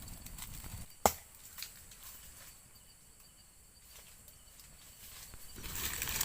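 Night forest ambience with faint steady insect calls, and one sharp click or snap about a second in.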